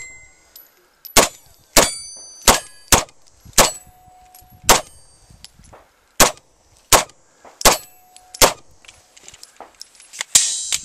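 Beretta PX4 9mm pistol firing about a dozen shots at an uneven pace, roughly half a second to a second and a half apart, with steel plate targets ringing after hits. A rapid cluster of sharp reports comes near the end.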